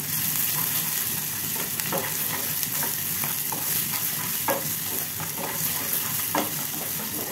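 Chopped onion, green chilli and carrot sizzling in hot coconut oil as they are stirred and sautéed in a nonstick saucepan with a silicone spatula. A steady sizzle runs throughout, with a few soft knocks and scrapes of the spatula against the pan.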